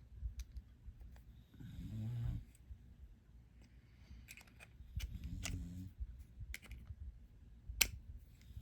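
Small metal clicks and taps from tools working a padlock apart, the sharpest about three-quarters of the way through. Twice in between comes a short, low hum from the person doing the work.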